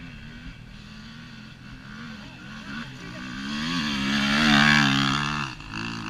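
Off-road trail motorcycle engine revving hard on a hill climb, its pitch wavering with the throttle; it grows steadily louder from about halfway, peaks near the end, then cuts off suddenly.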